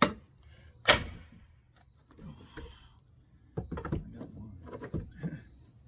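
Two sharp hammer blows on metal about a second apart, followed by a run of lighter knocks and taps, as nails holding old wall framing are struck to cut and bend them.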